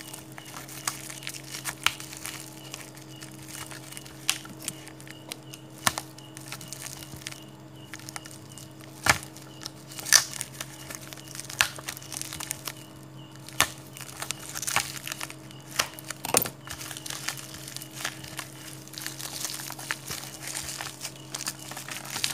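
Bubble wrap and clear plastic wrapping crinkling and crackling as they are peeled off a packaged diecast model car by hand, with scattered sharp snaps. A steady low hum sits underneath.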